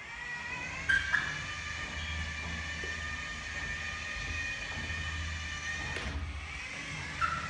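Drive motor of a homemade motorised tea trolley running with a steady whine over a low rumble of wheels. Short squeaks come about a second in and again near the end, from a makeshift caster wheel that isn't running smoothly and is upsetting the trolley's steering.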